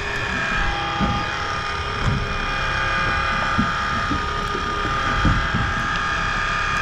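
Lindgren-Pitman (LP) electric deep-drop reel whining steadily as its motor winds in line under the load of a hooked tilefish. The whine drops a little in pitch about a second and a half in and stops right at the end.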